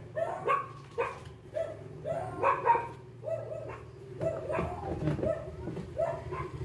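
A dog barking over and over in short, quick barks, two or three a second.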